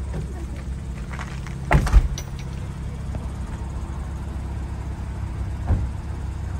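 A car door slamming shut about two seconds in, over the steady low rumble of a small hatchback's engine idling in the cold. A smaller thump comes near the end.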